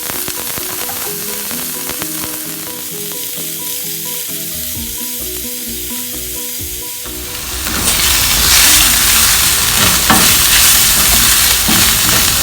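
Hot cooking oil in a pan sizzling softly under a light background melody. About seven and a half seconds in, chopped ingredients go into the oil and the sizzling turns suddenly loud and dense, with stirring.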